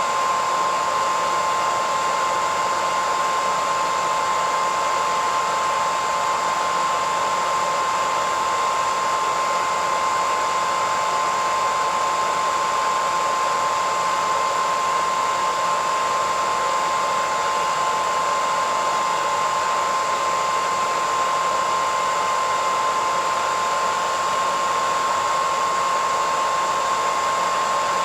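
Hairdryer running steadily, an even rush of air with a constant whine at a single pitch.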